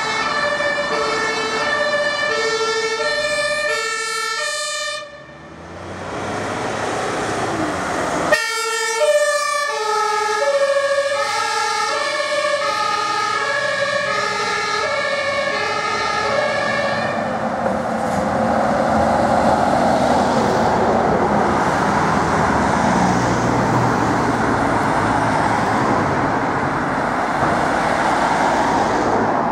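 Ambulance's compressed-air two-tone horn (German Martinshorn) sounding its alternating high and low notes, breaking off about five seconds in and starting again about three seconds later. It fades out past the middle, leaving steady road traffic noise from passing cars.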